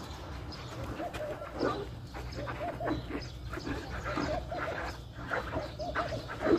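Animal calls: many short, arching pitched calls repeated several times a second, over a steady low rumble.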